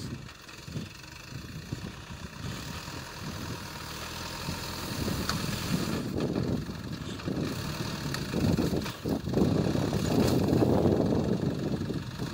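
Off-road 4x4's engine running while driving in deep snow, a rough rumble that grows louder over the second half.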